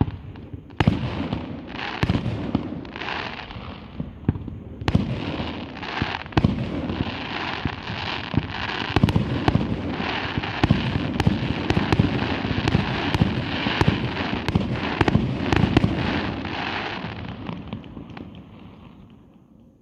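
Aerial fireworks bursting in a display: sharp bangs, each trailed by a short noisy crackle, coming faster into a dense barrage in the middle and then dying away near the end.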